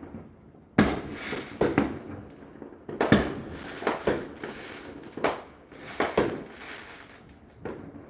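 Fireworks going off around the house: about a dozen sharp bangs at irregular intervals, some in quick pairs, each with a short echoing tail.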